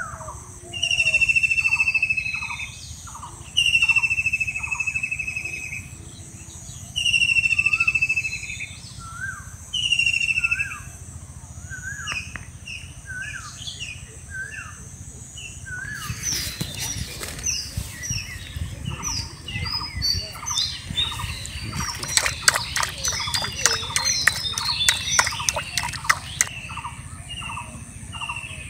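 Birds calling outdoors: a long, slightly falling whistled note repeated about every three seconds over a run of quick short chirps, with a steady high insect drone. From about 16 seconds in, a stretch of rapid crackling and rustling clicks joins the calls.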